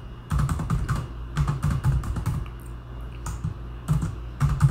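Computer keyboard typing: quick runs of keystrokes in irregular bursts.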